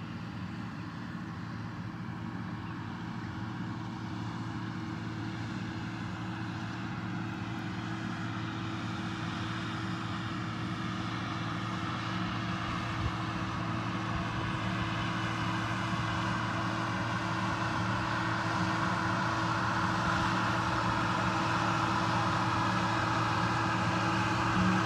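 Agco Allis 9455 tractor pulling a New Holland FP230 pull-type forage harvester as it chops alfalfa: a steady machine drone that grows slowly louder as the rig comes closer.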